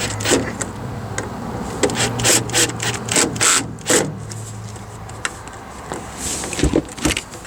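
Quick scraping and rubbing strokes, several in a row, over a low steady hum, followed by a couple of low thumps near the end.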